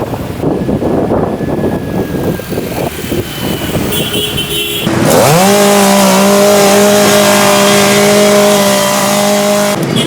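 Rough, noisy sound, then about five seconds in an engine rises in pitch and holds a steady note until it cuts off shortly before the end.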